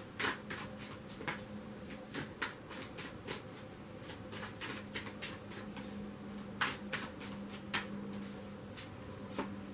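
A deck of tarot cards being shuffled in the hands: soft, irregular clicks and taps of the cards, over a faint steady hum.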